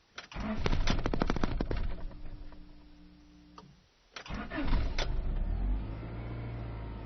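Honda H23A3 2.3-litre four-cylinder engine of a Rover 623 being cranked by its starter twice. The first attempt dies away within a few seconds; on the second, about four seconds in, the engine catches and settles into steady running.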